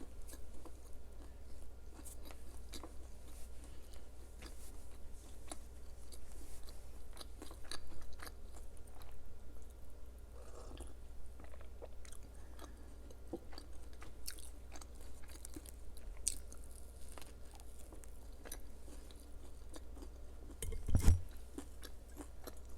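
Close-miked chewing and biting of crisp food, with many small crunches, over a steady low hum. Near the end there is one loud low thump.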